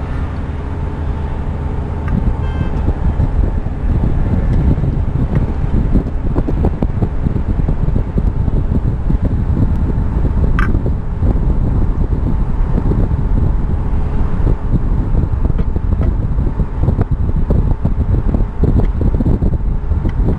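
Wind buffeting the microphone high up on a ship's mast: a loud, uneven low rumble, with a faint steady hum underneath and a brief rising chirp about halfway through.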